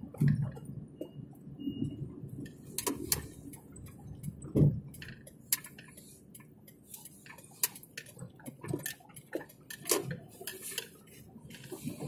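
Irregular light clicks and taps, a few every second, with louder dull knocks near the start and about four and a half seconds in.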